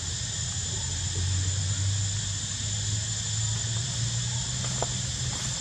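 Background insects droning in a steady high-pitched whine, over a low rumble that swells about a second in and dies away near the end.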